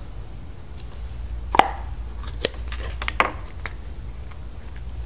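Plastic Play-Doh tub and modelling tools being handled and set down on a tabletop: a handful of light knocks and clicks, the loudest about a second and a half in, over a steady low hum.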